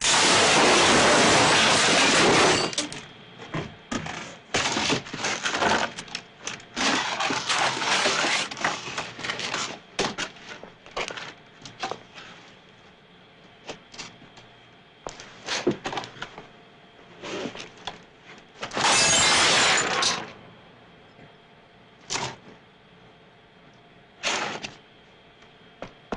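Foley artists performing crash and impact effects for a fight sequence, starting with a table smash. It opens with a long smashing crash, followed by a run of uneven hits and knocks. A second long crash comes about 19 seconds in, then more scattered hits.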